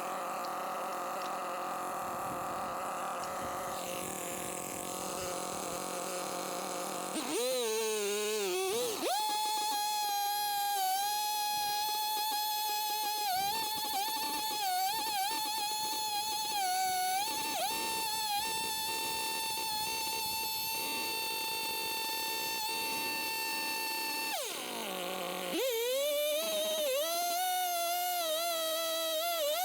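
Husqvarna 572XP chainsaw with a 70 cm bar milling a log lengthwise. It runs at part throttle, revs up about seven seconds in and holds at full throttle, its whine dipping a little as the chain bites the wood. It eases off briefly near the end, then revs up again at a slightly lower pitch under load.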